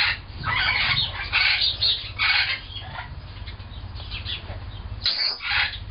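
Goffin's cockatoos making a run of short, raspy noises, about five in all, the last about five seconds in, over a steady low hum.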